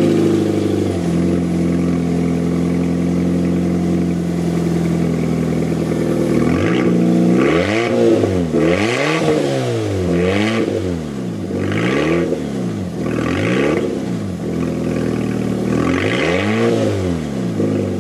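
Fiat 500 petrol engine idling loudly through a broken exhaust, then blipped up and back down about six times from about six seconds in. The middle section has rotted through at the hanger weld and is blowing, which gives the little car a deep note that sounds like a V8.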